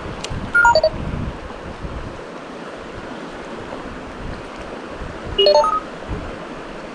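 Steady rush of a mountain stream, with two short runs of stepped beeping tones: three falling notes just under a second in, and four rising notes about five and a half seconds in.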